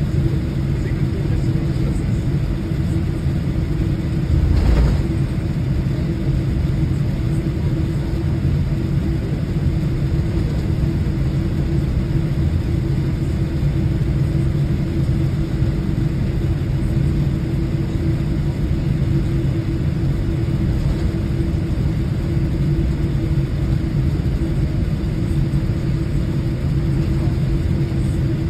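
Jet airliner cabin noise while taxiing: a steady low rumble of the idling engines and rolling wheels with a steady droning hum. A single brief thump about five seconds in.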